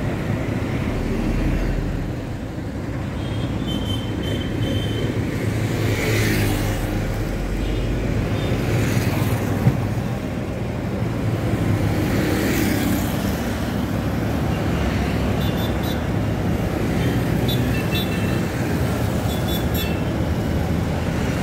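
Roadside traffic: motorcycles and buses pass one after another, with engine and tyre noise on the asphalt. It swells as vehicles go by, twice most clearly.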